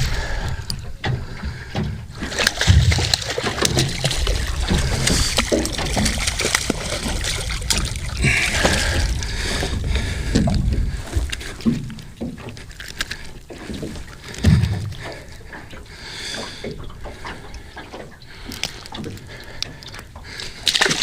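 Water splashing and sloshing beside a small fishing boat as a hooked kahawai is played and brought aboard. There are many short knocks and clicks of handling over a low rumble, busier in the first half.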